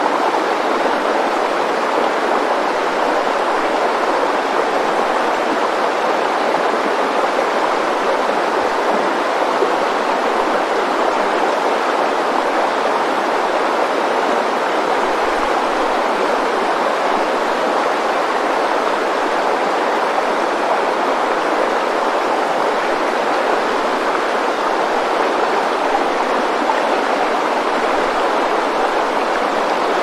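Fast-flowing river water rushing over rapids, a steady even rush with no breaks.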